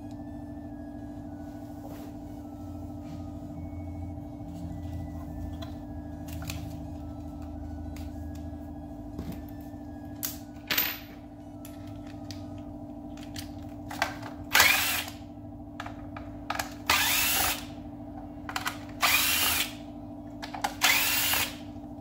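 Cordless Craftsman driver spinning in several short runs, under a second each, backing screws out of the back housing of a GM climate control unit. A steady hum runs underneath.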